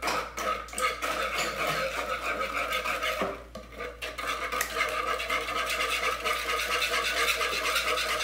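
Eggs and sugar being beaten by hand in a bowl, the utensil scraping and clicking against the bowl in quick, steady strokes, with a brief pause about three seconds in.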